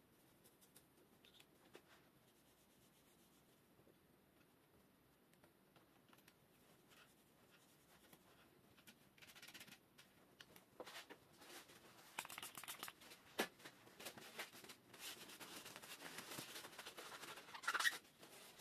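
Paper towel rubbing and scrubbing over a bicycle's cable-operated disc brake caliper, degreasing it. It is faint at first, then turns into quick scratchy wiping strokes in the second half, loudest near the end.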